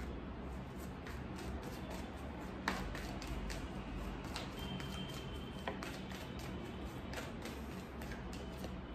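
A deck of tarot cards being shuffled by hand: soft, irregular taps and slides of the cards against each other, with one sharper tap a little under three seconds in, over a steady low hiss.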